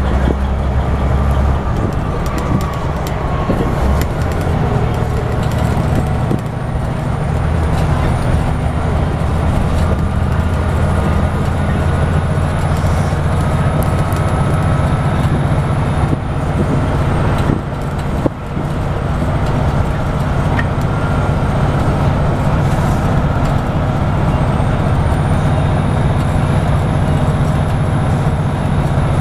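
Scania N94UB Omnidekka double-decker bus heard from inside the passenger saloon while driving: a steady low engine drone with tyre and road noise and cabin rattles. The engine note shifts a few times, and a brief drop in level comes about two-thirds of the way through.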